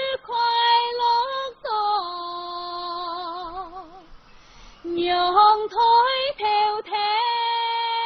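A woman sings a Hakka mountain song solo, in a high voice with long held notes, slow vibrato and slides up between pitches. The singing fades out briefly about four seconds in, then picks up again.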